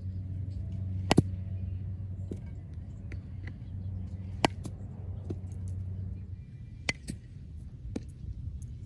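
A handful of sharp clacks of a baseball smacking into a leather fielding glove, the loudest about a second in and about four and a half seconds in, over a steady low rumble that fades about six seconds in.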